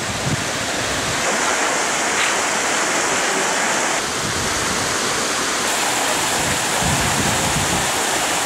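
Muddy storm runoff rushing steadily over rocks in a ravine, a continuous noisy rush of water.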